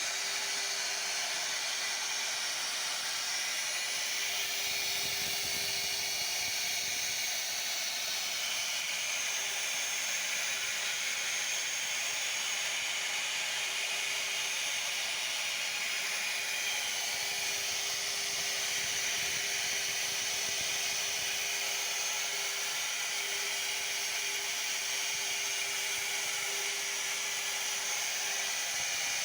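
CNC router spindle running steadily while cutting wood: a constant hiss with one steady whine under it.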